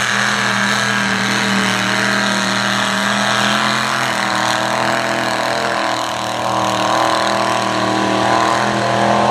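Mud bog truck's engine running hard and steady as the truck churns through a deep mud pit. The engine note shifts slightly about six seconds in as it eases out of the pit.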